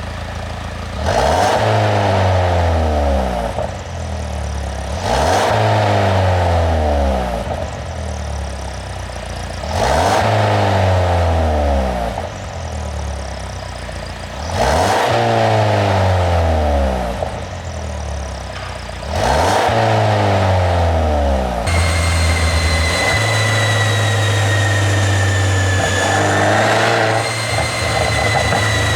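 Mercedes-Benz W213 E350 4Matic engine blipped five times, about every four and a half seconds, each rev rising and falling back with pops and crackles from a tuned exhaust. It then settles to a steady idle with a faint high whine.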